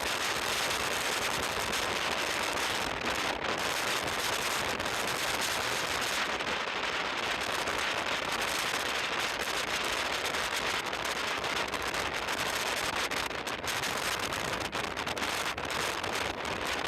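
Gale-force wind blowing sand: a steady hiss with fine crackling.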